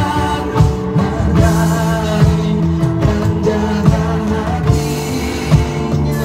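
Live band playing a pop song: keyboard chords with drums struck with sticks keeping a steady beat.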